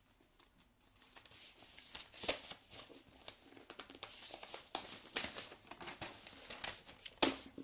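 Faint rustling and scattered irregular clicks of a phone being handled close to its microphone, with a sharper click near the end.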